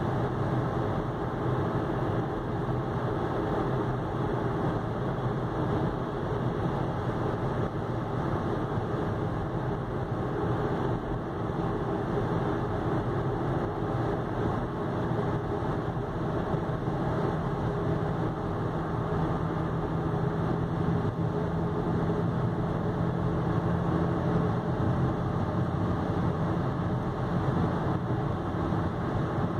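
Inside the cabin of an Audi with a diesel engine and automatic gearbox cruising at about 90–100 km/h: a steady engine drone at around 2,000 rpm mixed with road and tyre noise. It grows slightly louder toward the end as the car gently picks up speed.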